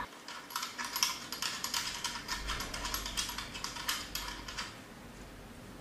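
Rapid small clicks and rattles of a metal test-lead connector being fitted and screwed onto the output terminal of a phone-board short-circuit detection box. They stop near the end.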